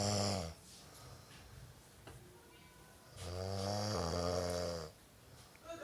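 A man snoring loudly with a rasping, saw-like drone. One snore ends about half a second in, and a second one, nearly two seconds long, starts about three seconds in.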